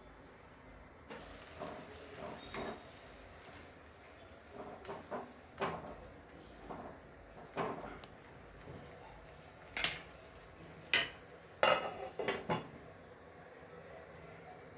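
A ladle knocking and scraping as it stirs a simmering prawn and mango curry in a non-stick kadai, with the clinks of the glass lid being lifted off and set back on. The sharpest clinks come between about ten and twelve seconds in.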